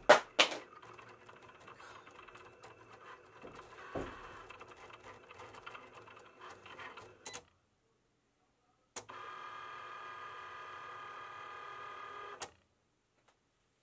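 Cricut cutting machine at work on a print-then-cut sheet: two sharp clicks at the start, then irregular clicking and whirring from the moving blade carriage, with a thump about four seconds in. After a brief silence, a steady motor whine runs for about three and a half seconds as the mat is fed through, then stops abruptly.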